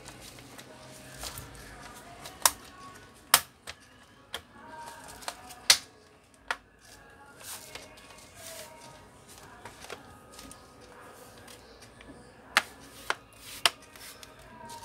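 Sharp plastic clicks and knocks from a laptop's plastic bottom cover as hands press along its edges and handle it. There is a run of about seven clicks a few seconds in and three more near the end.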